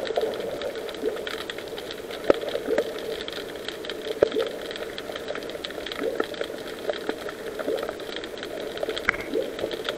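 Underwater sound picked up by an action camera in its waterproof housing: a steady muffled hiss of moving water with frequent small, irregular crackling clicks and taps.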